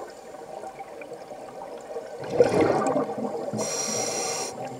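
Underwater bubbling and breath sounds, with a louder bubbling rush a little over two seconds in and a brief hiss about a second later.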